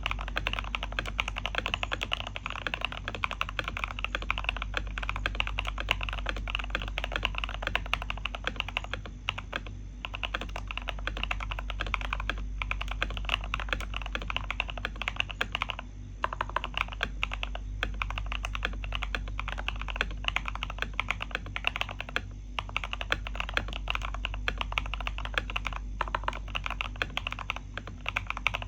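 Fast, continuous typing on an Everglide98 mechanical keyboard, keystrokes clattering with a few short pauses. It is a typing sound test of how deep and 'thocky' the keyboard sounds.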